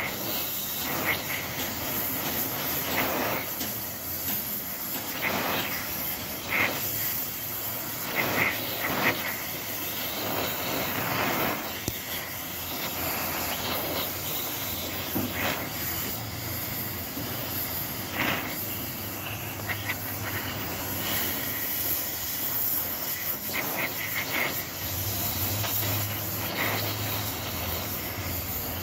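TIG welding arc on aluminium hissing steadily, with scattered short crackles and a low hum that comes in near the end.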